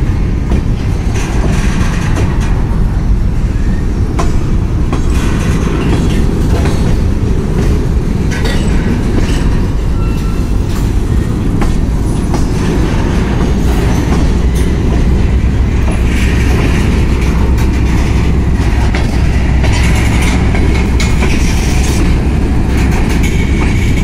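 Freight train of covered hopper cars rolling steadily past: a continuous heavy rumble of steel wheels on rail, with faint clicks scattered through it.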